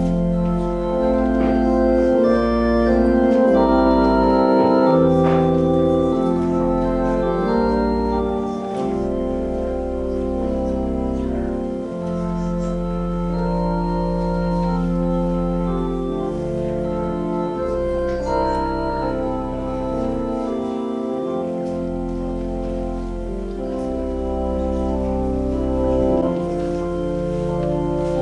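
Organ playing slow, sustained chords over low bass notes, the chords changing every second or two.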